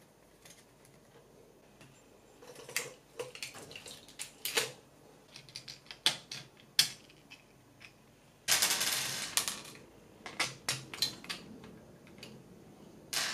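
Clicks and light clatters of 3D-printed plastic parts and small metal screws and nuts being handled and set down while an X carriage is taken apart, with a scraping rustle lasting about a second a little past the middle.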